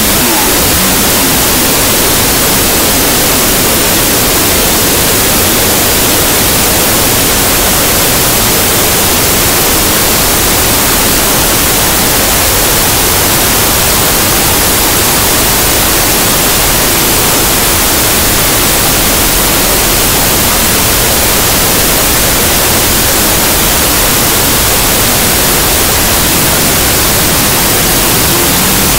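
Loud, steady static-like hiss that does not change.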